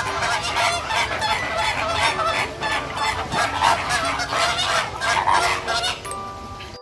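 A flock of flamingos honking, many calls overlapping in a continuous chorus that dies away near the end.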